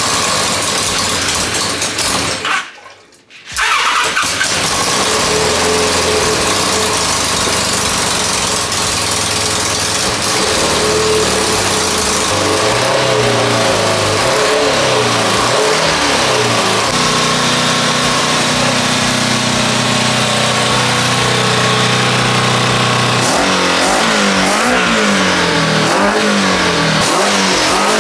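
Kawasaki 1200 cc four-cylinder superbike engine, mounted in a homemade jet ski hull, running loud through its water-cooled exhaust. It breaks off for about a second near the start, then runs steadily, and the revs rise and fall repeatedly near the end.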